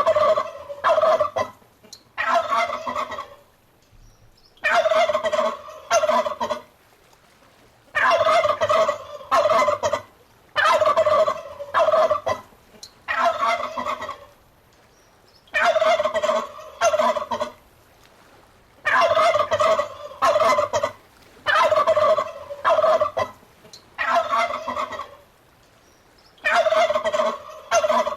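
Domestic turkey gobbling over and over: a rapid rattling gobble about a second or so long, repeated roughly every two and a half to three seconds.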